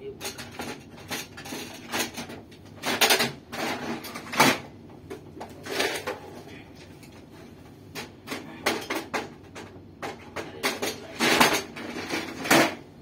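Irregular metallic clinks and knocks of a screwdriver and screws against metal parts, with several louder clatters.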